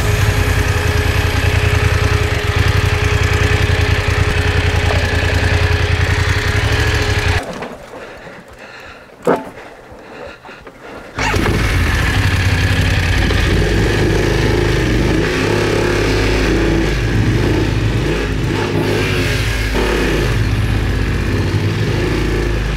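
BMW F850GS parallel-twin motorcycle engine running, then cutting out about seven seconds in. A few seconds of quiet follow, broken by a single sharp click, before the engine starts again and runs on.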